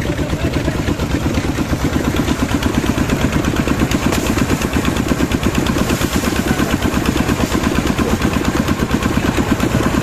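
Concrete mixer running: its small engine chugging at a steady, fast, even beat while the drum turns with wet concrete inside.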